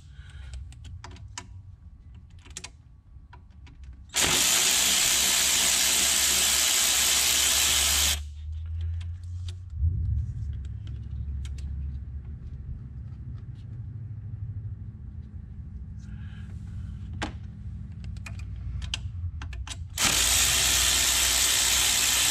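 Cordless power tool whirring in two steady runs of about four seconds each, one about four seconds in and one near the end, backing out the 8 mm bolts that hold the EGR pipe on a Ford 2.0 EcoBoost.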